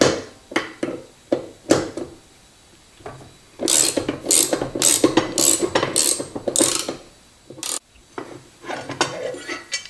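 A hand tool turning out the Torx head screws that hold the fence of a DeWalt miter saw: scattered metal clicks, then a run of quick scraping strokes about three a second in the middle, then more clicks.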